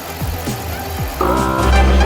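Background electronic music with a steady kick-drum beat; a melody joins in a little over a second in and the music gets louder.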